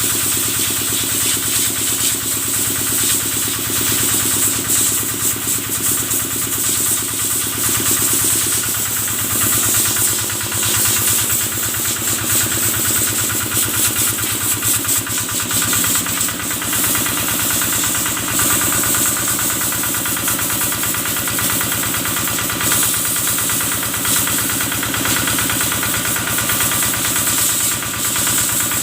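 Kubota single-cylinder diesel engine running steadily, driving the water machine used to wash cattle. Its pitch shifts slightly a couple of times, over a steady high hiss.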